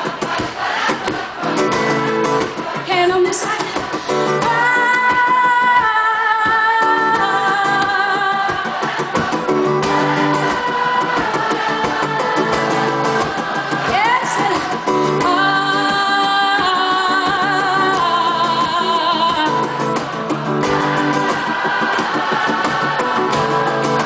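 A woman singing live to her own acoustic guitar, holding long notes that step from pitch to pitch, with a wavering vibrato on a high held note over halfway through.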